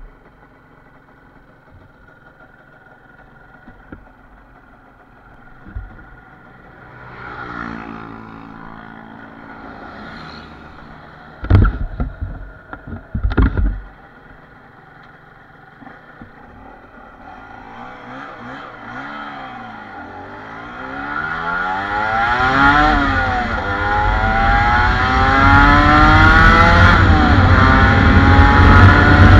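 Two-stroke Yamaha TZM150 engine in a TZR150 motorcycle accelerating hard through the gears: the engine note climbs, drops at each shift and climbs again, with wind noise building as speed rises. A few loud thumps come about halfway through.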